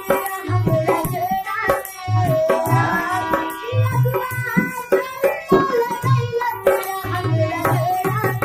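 Bhojpuri folk song: a woman singing over a harmonium's held chords, with a rope-laced dholak drum beating a steady rhythm.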